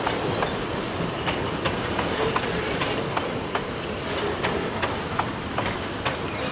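Narrow-gauge wooden passenger carriages of the Puffing Billy steam railway rolling past over a timber trestle bridge: a steady rumble of wheels on rail with irregular clicks from the rail joints.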